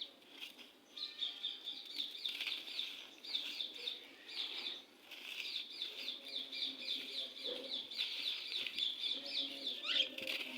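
A bird singing: runs of quick, repeated falling notes, several a second, broken by short pauses.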